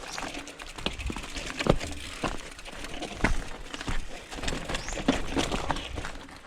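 Mountain bike clattering over a rough trail: irregular knocks and rattles over a steady rustle of tyres on loose ground.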